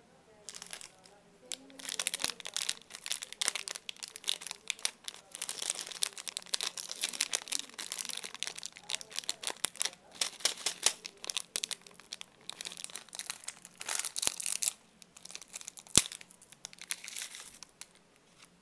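Plastic snack-packet wrapper crinkling and tearing as it is handled and opened, in rapid irregular crackles, with one sharp click about sixteen seconds in.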